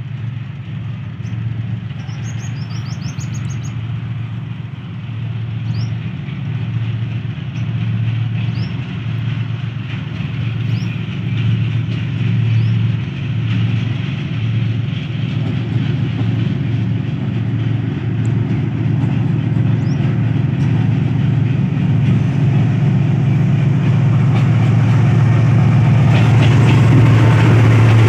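GEU-40 diesel-electric locomotive hauling a loaded coal train through at speed, its engine drone growing steadily louder as it approaches and drawing level near the end. Birds chirp over it in the first few seconds.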